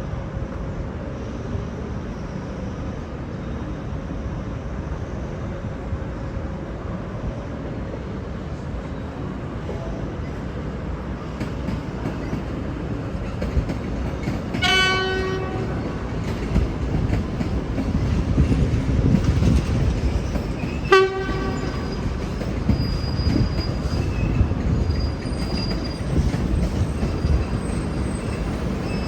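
V/Line VLocity diesel multiple unit pulling out, engine rumble and rail noise building, with two short blasts of its low-note horn, each about a second long and about six seconds apart, the first about halfway through.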